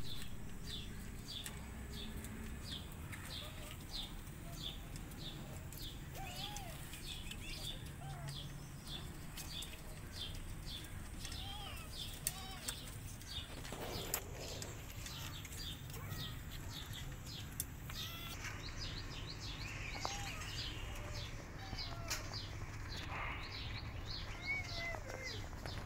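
A small bird chirping steadily, short high chirps about two to three a second, over a low background hum, with a few fainter, lower calls now and then.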